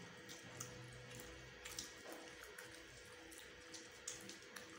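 Faint eating sounds: instant noodles being scooped by hand off banana leaves and chewed, giving a few soft, short clicks and smacks over a low steady hum.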